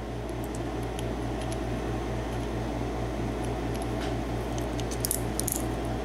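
A steady low hum that pulses about six times a second, with a few faint metallic clicks from the brass padlock cylinder and plug being worked apart with a follower rod.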